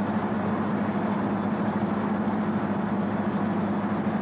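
A towing ship's engine running steadily while it tows a wherry alongside: an even, low drone with a constant pitch.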